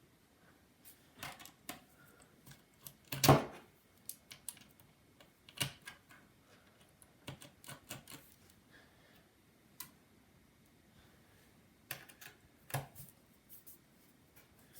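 Scattered small clicks and taps of a precision screwdriver working the screws out of a MacBook Air's aluminium bottom case, with one louder knock about three seconds in.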